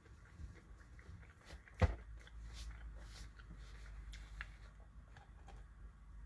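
Quiet eating and handling sounds: scattered small mouth clicks and rustling as a paper napkin is worked between the hands, with one sharp knock about two seconds in.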